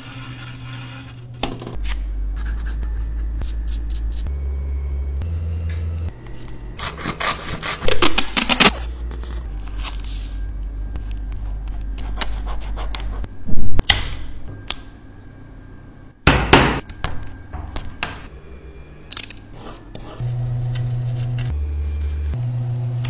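Background music with a low bass line, broken by several loud scraping sounds from hand tools working leather, the loudest about 8, 14 and 16 seconds in.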